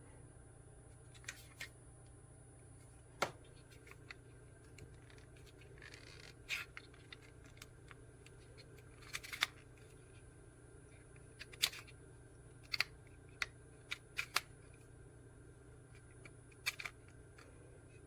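About a dozen scattered sharp plastic clicks and short scrapes from a hand-held plastic travel plug adapter being handled, over a faint steady low hum.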